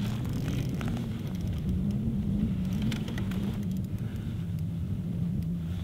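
A steady low engine hum and rumble, with a few faint clicks over it.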